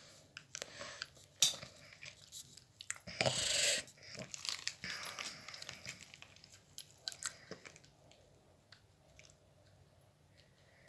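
Small plastic doll accessories and their packaging being handled and unwrapped: scattered light clicks and crinkling, with a louder crinkly rustle a few seconds in, growing sparser and quieter after the middle.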